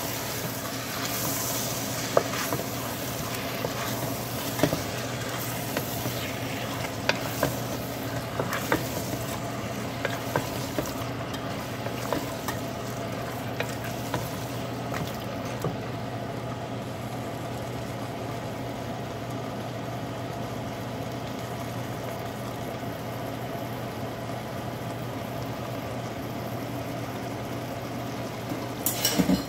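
Chicken, white beans and tomato puree sizzling in a metal pressure-cooker pot on the stove. A wooden spatula knocks and scrapes against the pot during roughly the first half.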